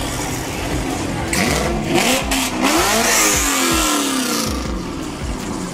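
A car's engine revving hard as it pulls away, its pitch climbing and then dropping in several sweeps between about one and a half and four and a half seconds in, loudest in the middle.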